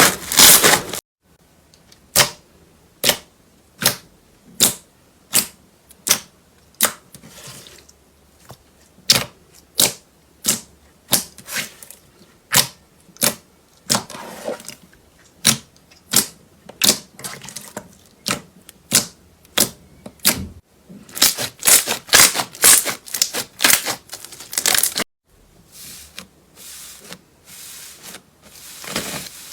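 Slime being pressed and squished, giving sharp clicking pops about once a second, with a quicker run of crackling pops near the end.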